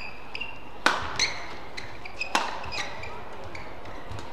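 Badminton rackets striking the shuttlecock in a rally: two sharp hits about a second and a half apart, between smaller taps. Short high squeaks of players' shoes on the court mat come in between.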